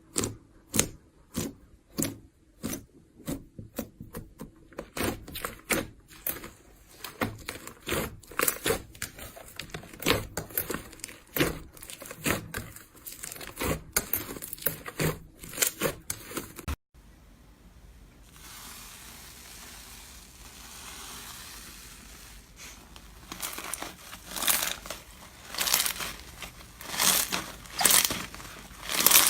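Slime being squeezed, pressed and pulled by hand, giving sharp crackling and popping clicks in a rhythm of roughly two squeezes a second. About two thirds of the way through the sound breaks off into a few seconds of soft, quiet handling, then the rhythmic crackling squishes start again.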